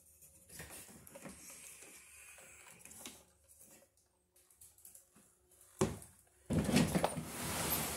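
Rustling and scraping of nonmetallic electrical cable being pulled and fed through wood wall framing, with a sharp knock about six seconds in and a louder scuffing rustle near the end.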